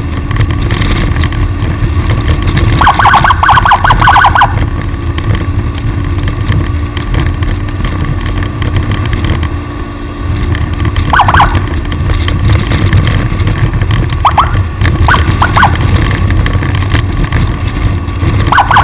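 Steady engine and road rumble of a vehicle on the move, broken by a few short warbling signal blasts: a longer one about three seconds in and shorter ones later.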